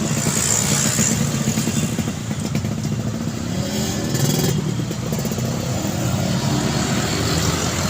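Busy road traffic: motor vehicles passing continuously with their engines running, one of them rising in pitch as it speeds up about three seconds in.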